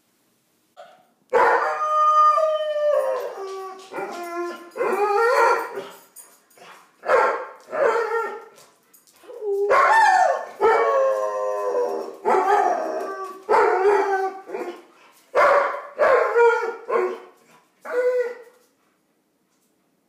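German Shepherd howling: a long string of loud howls, one after another with short breaks, each rising and falling in pitch.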